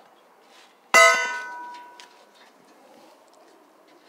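A single sharp metallic clang about a second in, ringing on with a few clear tones that die away over about a second.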